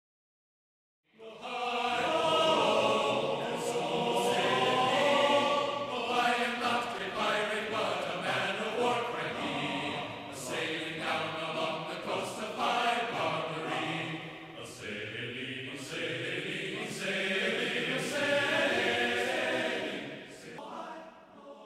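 A choir singing as opening music, coming in about a second in after silence and fading out near the end.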